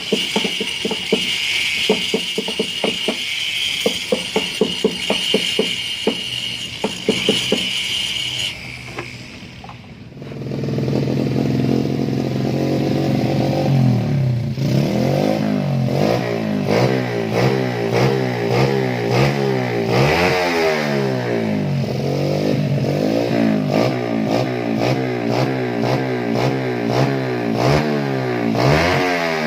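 A steady high-pitched whine with a fast rattle for about eight seconds. Then, from about ten seconds in, a motorcycle engine running and being revved up and down again and again.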